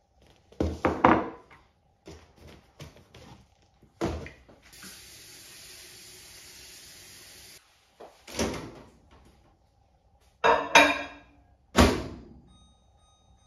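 Kitchen handling sounds: a bowl and a cardboard oats canister knocked and set down on a countertop, small clicks, and a few seconds of steady rushing noise in the middle. Near the end there are more clatters and a final thud as the microwave door is shut.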